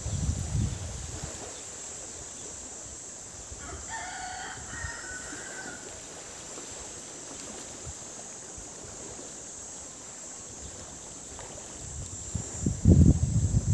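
A rooster crows once, a single call of about two seconds a few seconds in, over a steady high insect drone. Near the end a low rumble rises and becomes the loudest sound.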